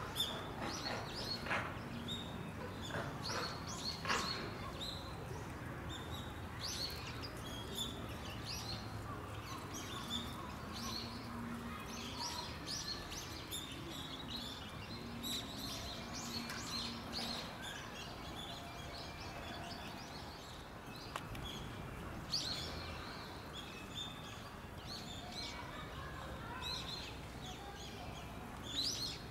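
Small birds chirping: short high calls repeating irregularly over a steady background noise.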